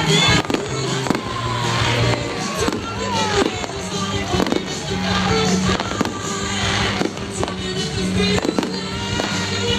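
Display fireworks going off in quick succession, with many sharp bangs and crackles over music playing.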